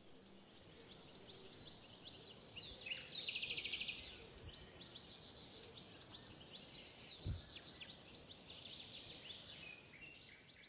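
Birds chirping and calling in open woodland, many short calls overlapping, with a dense rapid trill about three seconds in. A single low thump comes a little after seven seconds.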